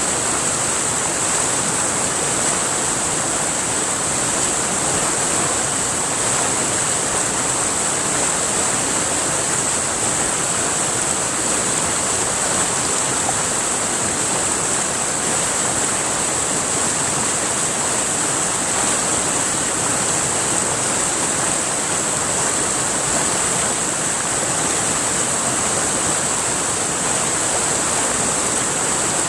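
River water flowing in a steady, unbroken rush, with a steady high hiss running through it.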